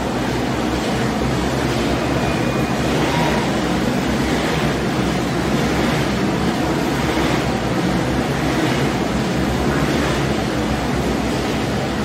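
Several motorcycles riding together inside a steel-mesh globe of death: a dense, continuous engine noise that swells and eases every second or two as the riders circle.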